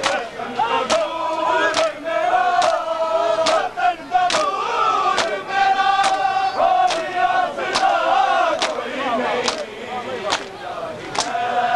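Large crowd of men chanting a mourning lament together while beating their chests in unison (matam), each hand-on-chest slap landing on a steady beat a little faster than once a second.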